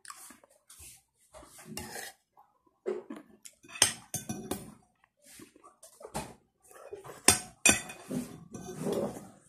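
Metal spoon and fork scraping and clinking against a plate while eating, with several sharp clinks in the second half.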